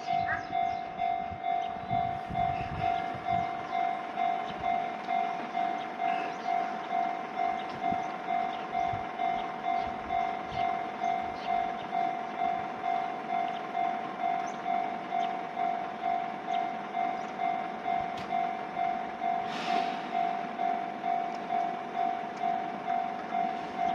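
Japanese level-crossing alarm ringing, a steady electronic ding about twice a second, while an Enoshima Electric Railway train passes with light clicking and rumble. A short, sharp noise comes just before the 20-second mark.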